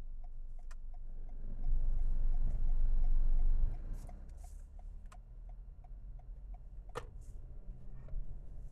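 Turn-signal indicator of a 2024 Toyota RAV4 ticking steadily inside the cabin, about three or four ticks a second. About a second and a half in, a louder low rumble of the car pulling away through the turn lasts about two seconds, and a single sharper click comes about seven seconds in.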